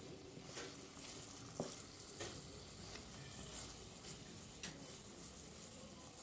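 Sausages frying in oil and chili flakes in a nonstick pan with a steady high sizzle, while a wooden spatula stirs and turns them, scraping the pan several times.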